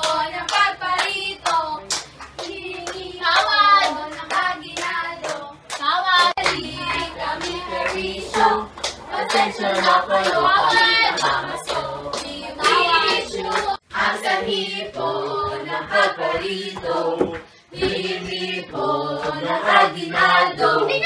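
Voices singing together with steady, rhythmic hand clapping, like a group clapping chant.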